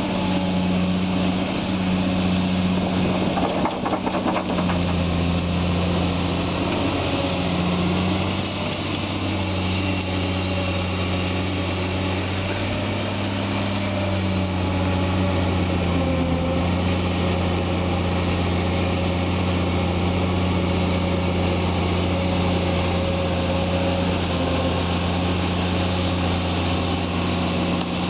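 Caterpillar 345 long-reach excavator's diesel engine running steadily while digging. Its note shifts slightly a few times as the hydraulics take load.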